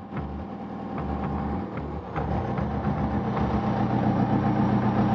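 Diesel engine of a concrete pump truck running steadily, with faint scattered clicks, getting a little louder about two seconds in.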